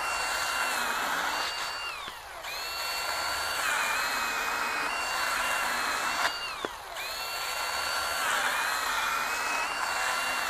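Milwaukee M18 Fuel cordless pruning chainsaw cutting through a small log. Its motor and chain give a high whine that sags in pitch while the chain is loaded in the wood. The trigger is let off and the saw spun back up twice, about two seconds and six and a half seconds in.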